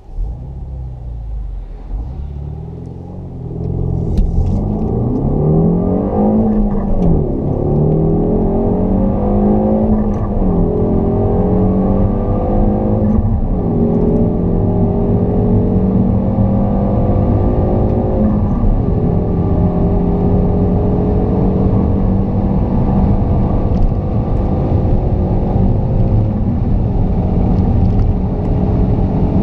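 Car engine accelerating flat out from a standstill through the gears, heard inside the cabin. The pitch climbs in each gear and drops at four upshifts, about 6, 10, 13 and 18 seconds in, then rises slowly in top gear as the car passes 200 km/h.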